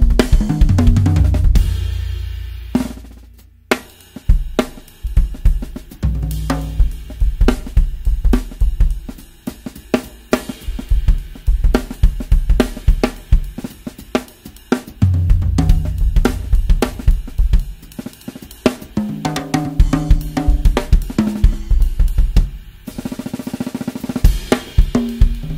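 Acoustic drum kit played with grooves and tom fills: high-tuned toms give short, pitched, almost marimba-like notes, over a snare tuned very high for a cracking sound, with bass drum, hi-hat and cymbals. The playing breaks off for a moment about three seconds in, then carries on.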